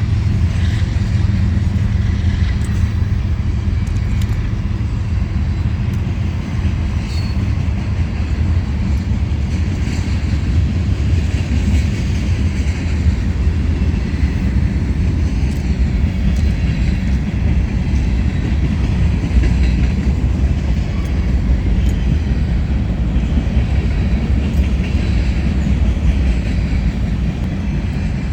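A large engine running steadily, a continuous low drone that does not change.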